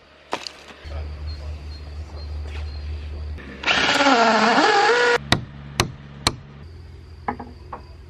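Cordless drill driving a screw through a tent's steel D-ring into wooden decking, its motor whine dipping in pitch under load and rising again. It is followed by three sharp knocks about half a second apart.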